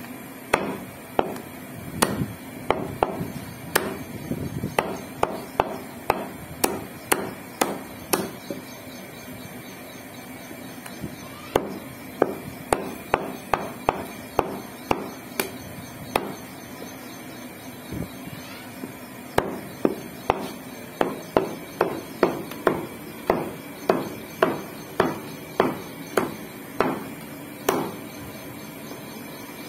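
Heavy meat cleaver chopping goat meat on a round wooden chopping block: runs of sharp chops about two a second, broken by a few short pauses.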